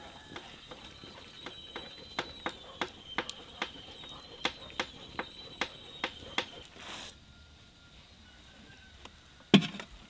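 Rhythmic clicking and scraping, about three strokes a second, as rose hips are rubbed by hand against a metal sieve over a pot. About 9.5 seconds in there is one loud metal clank with a short low ring, a pot being handled.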